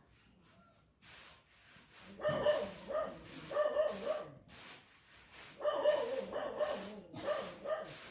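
Dog barking repeatedly in two runs of quick barks, the first starting about two seconds in and the second near six seconds.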